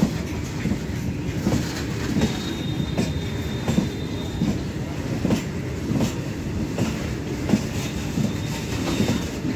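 Loaded Indian Railways BOXN open freight wagons rolling past close by, their wheels knocking over the rail joints in an uneven clatter. A faint, thin, high steady squeal from the wheels comes twice, in the first half and near the end.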